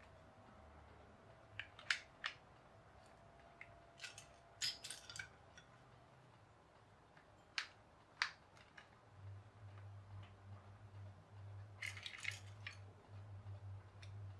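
Plastic toy building bricks being handled and pressed together: sharp clicks and snaps, some single and two short flurries, about four seconds in and near the end.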